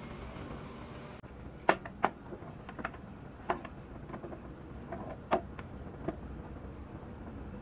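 Small plastic and metal parts of a toy model truck clicking and tapping as they are handled and fitted onto the chassis: about six sharp, irregular clicks over a steady low hiss.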